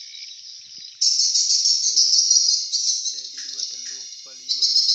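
Dense, high-pitched twittering of swiftlet calls, jumping much louder about a second in.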